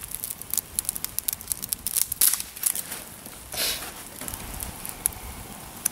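Small wood fires crackling, with quick sharp pops and snaps that are thickest in the first half. A short rustle comes about halfway through.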